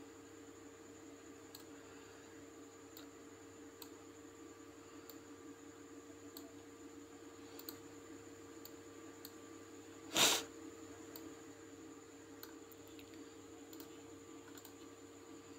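Faint computer mouse clicks, scattered roughly once a second, over a steady electrical hum from the microphone. About ten seconds in, one short, louder knock stands out.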